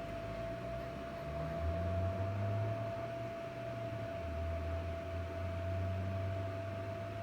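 Duraflame infrared quartz electric space heater's fan running, a steady hiss of blown air with a constant whine over it and a low hum.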